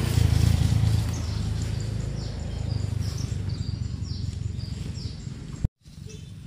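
Birds calling: a run of short, high, falling chirps over a low rumbling background noise. The rumble is loudest in the first second. Near the end the sound drops out completely for a moment.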